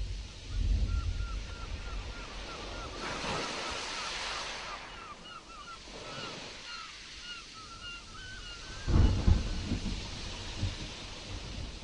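Stormy sea: waves washing, with gusting wind buffeting the microphone in low thumps, the strongest about nine seconds in. A string of short, quick repeated chirps runs over the waves for most of the time.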